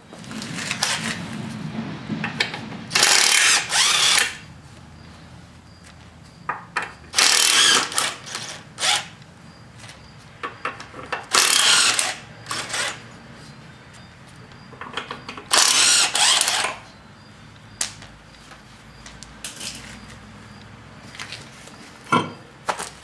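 Power tool with a socket spinning the lug nuts off the ZTrak's rear wheel, in four bursts of about a second each. Short metal clicks and clinks come between the bursts.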